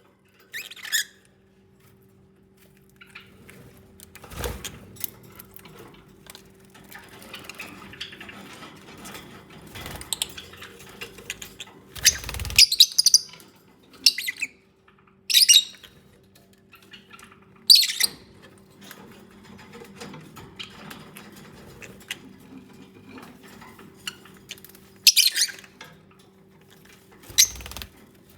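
Lovebirds giving short, sharp squeaky chirps every few seconds, with softer chatter and rustling between and a few low thumps as they move about. A steady low hum runs underneath.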